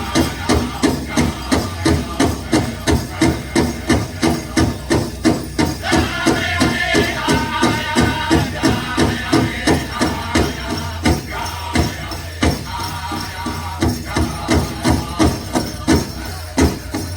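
Pow wow drum group striking a big drum in a steady beat, about three strikes a second, with high-pitched group singing joining about six seconds in.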